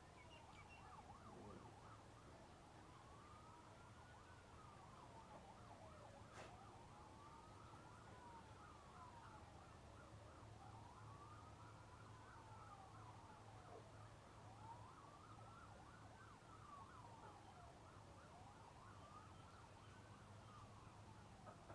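Faint, distant emergency-vehicle siren wailing, rising and falling about every four seconds, with a faster warbling siren pattern layered over it.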